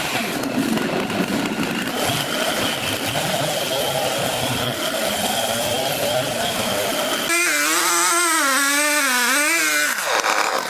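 Sawmill machinery running with a steady mechanical noise. About seven seconds in it switches abruptly to a pitched whine that wavers up and down for about two and a half seconds before the machine noise returns.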